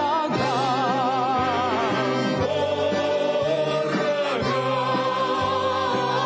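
Russian folk song: a voice holds a long line with wide vibrato over button-accordion chords, with other voices joining in. The accompaniment then sustains steady held chords.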